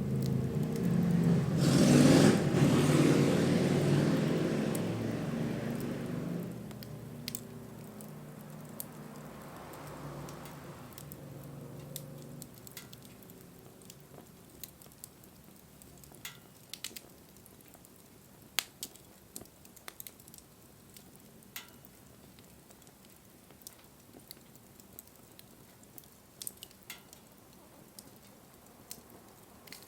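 Wood bonfire burning with scattered sharp crackles and pops. In the first few seconds a louder rushing sound swells and then fades away.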